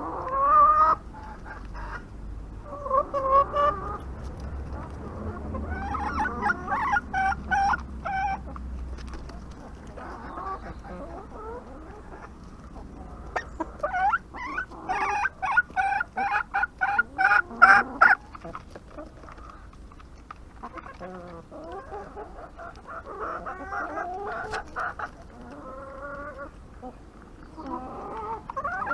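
Domestic chickens clucking and calling in bouts, with a fast run of short clucks in the middle.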